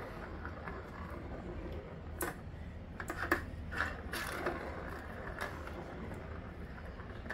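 Light, irregular plastic clicks and taps from a cat toy as cats nose and paw at it, its ball knocking about in the circular track under the base. A low steady hum runs underneath.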